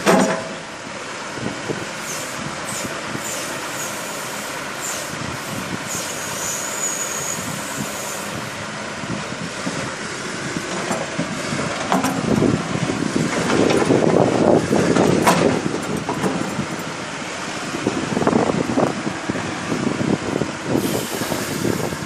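1996 John Deere 710D backhoe loader's diesel engine running while the backhoe is worked. There is a short loud knock right at the start, and the engine grows louder under load around the middle and again near the end.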